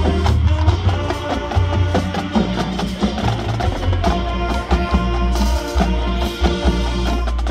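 High school marching band playing its field show: held brass and woodwind notes over a strong bass line, with frequent sharp percussion strikes.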